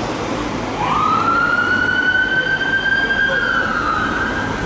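Emergency vehicle siren sweeping up about a second in, then holding a long high wail over road traffic noise.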